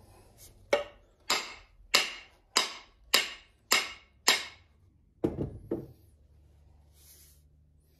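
Hammer blows driving an axe head onto a new wooden handle: seven sharp, ringing strikes a little under two a second, then two duller knocks about two seconds later.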